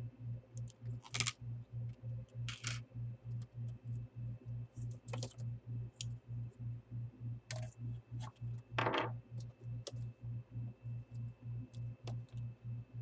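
Plastic laptop screen parts being handled by hand: the bezel and back cover give several short clattering, crackling clicks. Under them runs a steady low hum that pulses about three to four times a second.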